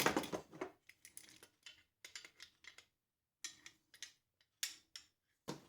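Scattered clicks and light knocks of a rotary cutting tool's router attachment being handled, its edge guide being fitted into the base. They are densest at the start and thin out to sparse clicks, with a short pause about halfway through.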